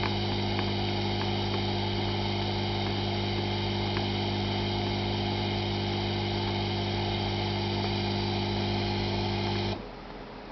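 Hot-air soldering station running with a steady hum and hiss. It switches off suddenly near the end, leaving a quieter background.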